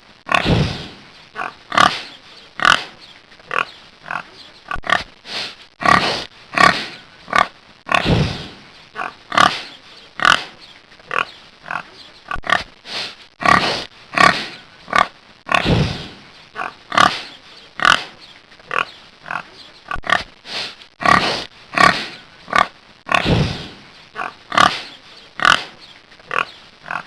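Pig grunting over and over in short calls, about one or two a second, with a few deeper, longer grunts among them.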